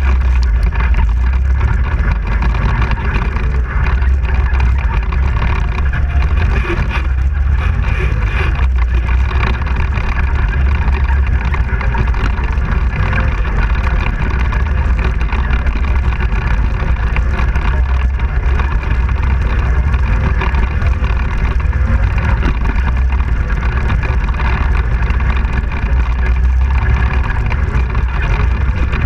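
ATV engine running steadily at riding speed, heard on board the quad, with no pauses or changes in pace.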